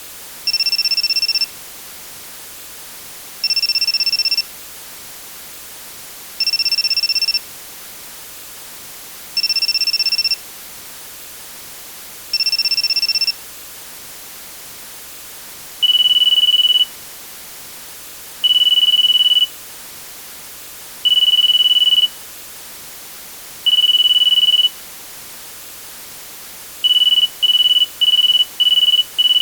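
Electronic telephone beeping. First come six one-second two-pitch beeps about three seconds apart, then four louder single-pitch beeps a little closer together. Near the end comes a quick run of short beeps, about two a second.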